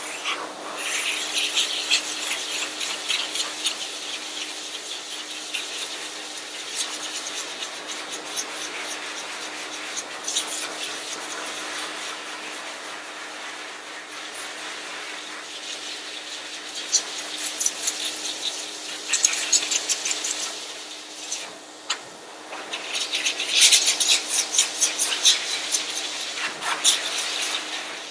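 Force dryer set on low, blowing air through a hose and nozzle onto a dog's wet curly coat: a steady rush of air over a constant motor hum, fluttering and swelling as the nozzle moves through the coat, with a brief drop about three quarters of the way through.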